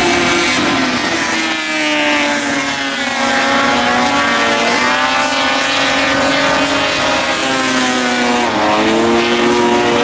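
Several dirt-track race car engines running hard together, their pitches rising and falling and overlapping as the cars accelerate and lift off.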